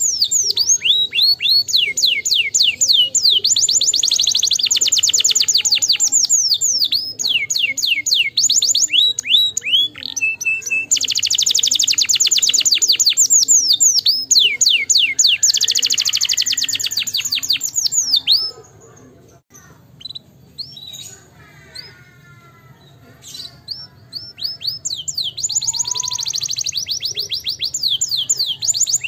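Canary singing, long runs of rapid-fire trills and rolls. It breaks off past the middle for a few seconds of faint scattered notes, then starts up again near the end.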